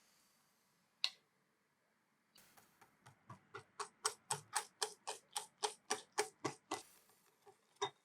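A single knock, then a run of quick, evenly spaced clicks, about four a second, of a whisk striking the sides of a bowl while mixing crepe batter. The clicks stop shortly before the end, with a couple of stray taps after.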